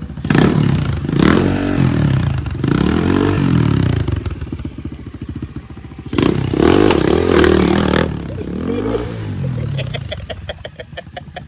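Small dirt bike's engine revving, its pitch rising and falling several times as the throttle is opened and closed, loudest in a sharp burst about six seconds in.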